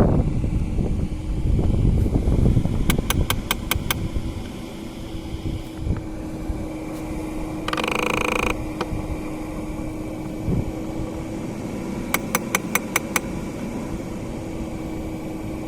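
Audi A6 C5 Climatronic V71 air-flow flap actuator clicking, the fault noise under investigation: two quick runs of about six sharp clicks each, about nine seconds apart. A steady fan hum runs underneath, and a short electronic tone sounds about halfway between the two runs.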